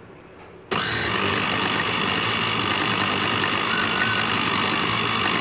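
Kenwood 500 W Quad-Blade electric chopper switching on suddenly under a second in and running steadily at full speed, blending yogurt and gram flour.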